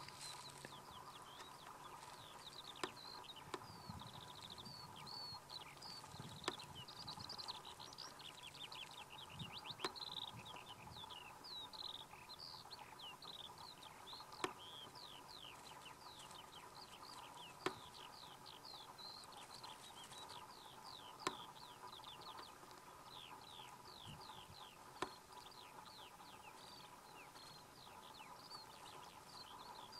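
Faint chorus of small birds singing: many quick, high, downward-sliding chirps following one another. A sharp click stands out every three to four seconds over a faint steady hum.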